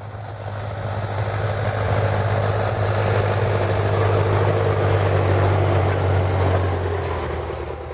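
John Deere tractor's diesel engine running steadily with a deep, even hum, growing louder over the first two seconds and fading out near the end.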